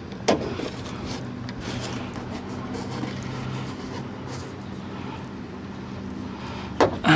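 Plastic trim removal tool prying at a car door's plastic interior trim panel: a sharp click about a third of a second in and another near the end, with a brief scrape at the very end, over a low steady hum.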